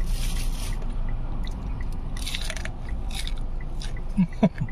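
A person chewing a crispy fried vegetable fritter close to the microphone, with a few crunchy bursts, and a brief hum near the end.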